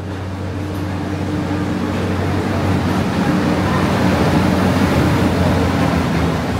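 A steady low engine hum under a broad rush of noise that swells louder over the first few seconds, then holds.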